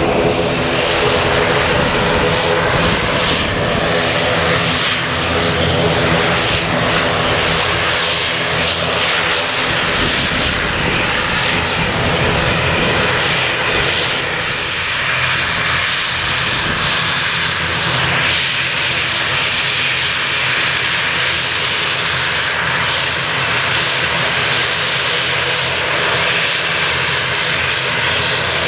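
Airliner engines running loud and steady, a wide rush of noise with a few steady whining tones over it and no break.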